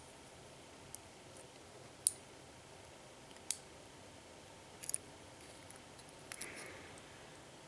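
Small sharp clicks of metal tweezers handling lock pins as they are taken out of the gutted lock's pin chamber, a handful of separate ticks a second or more apart, with a quick double click near the middle.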